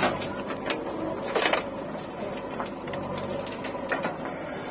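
Diesel engine of a working backhoe loader and tractor running steadily, with a few short sharp knocks and clatters as soil is loaded into a tractor trolley.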